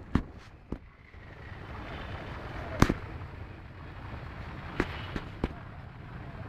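About half a dozen short, sharp pops or knocks at uneven intervals, the loudest about three seconds in, over a steady low rumble from handling and wind on a phone microphone.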